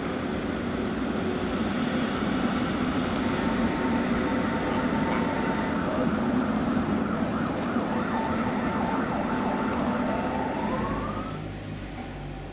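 Tatra T3 trams running past on street track: a steady rumble of wheels on rail with a high steady squeal, and a whine that rises in pitch about ten seconds in. The sound drops away near the end.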